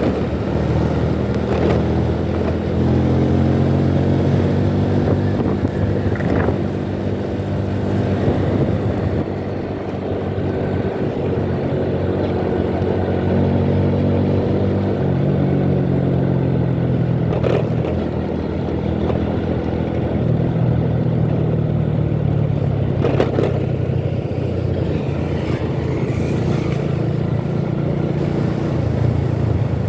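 Motor vehicle engines in road traffic, heard from a moving motorcycle: a steady engine drone whose pitch rises and falls. Two short knocks come in the second half.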